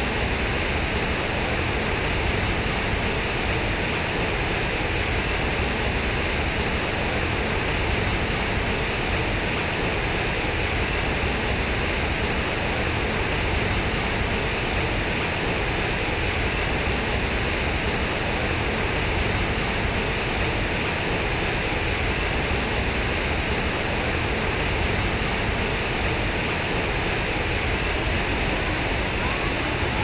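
Water from a large fountain pouring heavily out of square concrete spouts and splashing into the pool below: a steady, unbroken rush.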